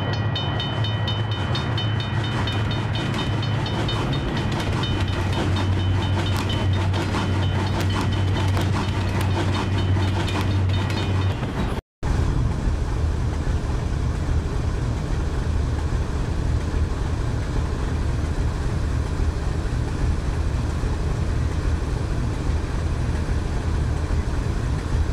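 Railway sound effects of a train at a level crossing: ringing tones, rapid clicking and a steady low engine drone. After a brief dropout about 12 seconds in, a steady low rumble, the distant diesel engine of the GE U40 locomotive heading the express as it approaches the station.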